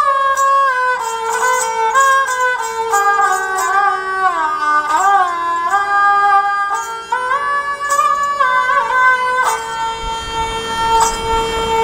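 Background instrumental music in a traditional Indian style: a melody of gliding, ornamented notes over a long-held lower note.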